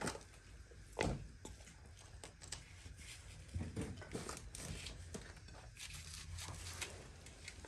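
Quiet handling sounds of a hand mixing khichuri and curry in a steel bowl, with a couple of short knocks near the start and about a second in, over a steady low hum.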